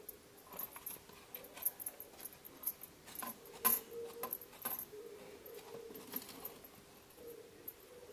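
Thin plastic drink bottles being handled as rice bait is pressed into them to make fish traps: irregular clicks, taps and crackles of the plastic, busiest in the middle.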